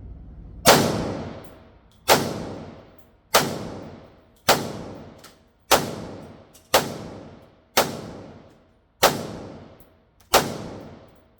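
Ruger-57 pistol firing 5.7x28mm rounds, nine single shots at an unhurried pace of about one a second, each with a long echoing tail.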